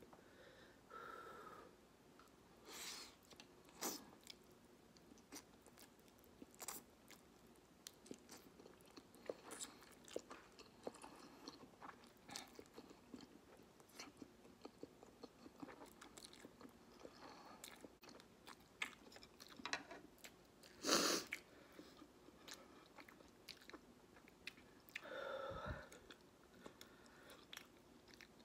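Close-miked chewing and slurping of spicy instant ramen noodles, with many small wet mouth clicks. A little after three-quarters of the way through comes one louder sudden choking cough from the spice, and a short strained vocal sound follows a few seconds later.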